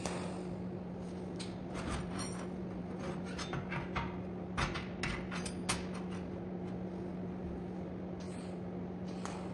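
Light clicks and clinks of metal pieces being handled, one at about two seconds ringing briefly, over a steady low hum.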